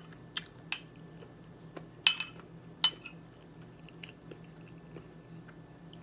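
A metal spoon clinks against a china plate: a few sharp clinks, the loudest a quick double clink about two seconds in. A faint steady hum runs underneath.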